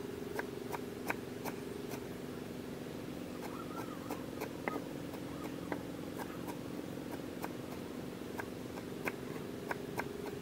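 Kitchen knife chopping fresh herbs on a wooden cutting board: irregular light knocks, roughly one every half second to a second, over a steady low hum.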